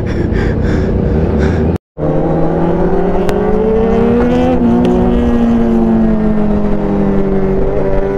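Motorcycle engine running under way at fairly steady revs, its pitch drifting slightly up and down. The sound cuts out abruptly for a moment about two seconds in.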